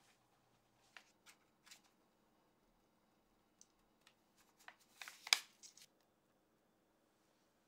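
A few light clicks and taps of kitchen utensils, metal spoons knocking on a glass bowl and a baking mat, with the loudest cluster of taps about five seconds in.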